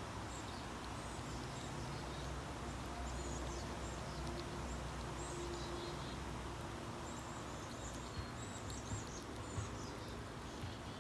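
Outdoor ambience: a steady low background rumble with faint birds chirping in the distance, and a few small faint clicks in the second half.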